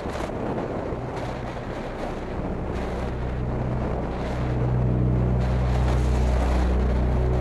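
Wind rushing over the microphone on a moving motorcycle. Background music fades in from about two and a half seconds, its steady bass notes growing louder toward the end.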